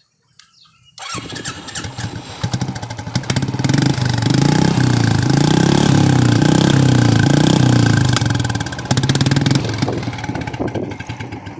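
Royal Enfield Classic 350's single-cylinder engine breathing through an aftermarket Indori big-mouth silencer. It starts about a second in and is revved up and held high, its pitch rising and falling, for several seconds. It then drops back, is blipped a few more times and settles.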